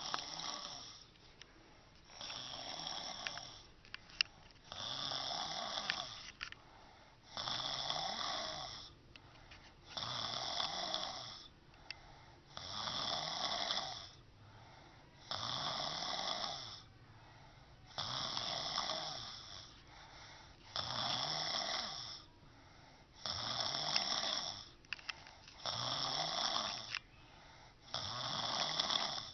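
A woman snoring with her mouth open: a steady rhythm of about a dozen snores, one every two and a half seconds or so, each lasting about a second and a half.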